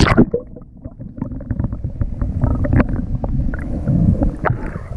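Low, rumbling wind and handling noise on the microphone, with scattered sharp clicks and knocks.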